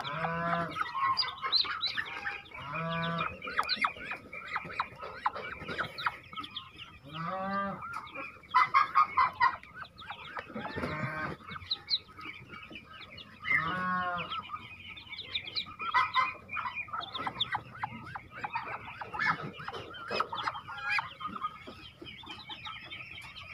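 Newly hatched Muscovy ducklings peep continuously as they are taken from the nest. An adult bird gives about five louder, harsh calls in between.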